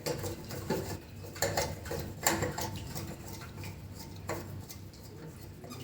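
Scattered light clicks and taps as a tester screwdriver turns out the screw lock of a toilet tank's flush-button fitting.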